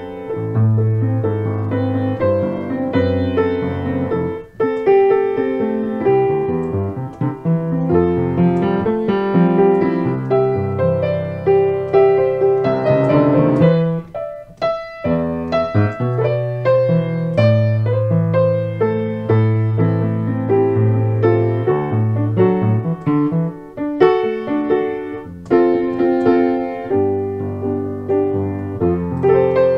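Piano played with both hands: a flowing piece with held bass notes under a moving melody, with brief breaks about four seconds in and again around the middle.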